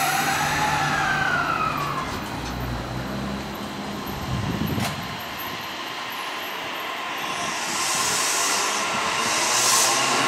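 JR East E233-series electric commuter train running along a station platform. Its motor whine falls in pitch as it slows, over a low rumble, with one sharp click midway. A rising hiss and rush builds as the cars go by.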